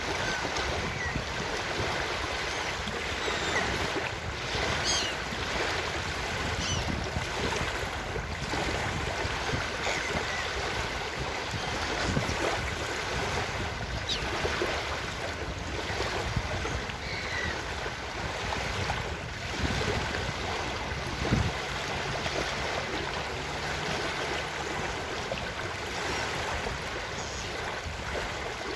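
Ocean surf washing steadily on a beach, with short seagull calls rising above it now and then.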